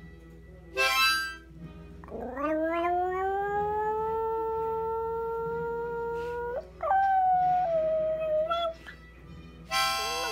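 A Pomeranian howling. One long howl slides up in pitch and holds steady for several seconds, then breaks up to a higher note that sags slightly before stopping. A short harmonica chord sounds just before the howl and another near the end.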